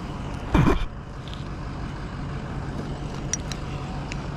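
An engine running steadily at low speed, a constant low hum. A brief loud thump comes about half a second in, and two faint clicks come near the end.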